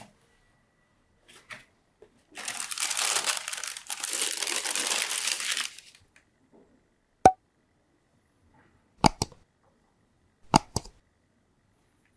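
Shoebox tissue paper crinkling for about three and a half seconds as a leather sneaker is pulled out of it, followed by a few short, sharp clicks and taps as the shoe is handled.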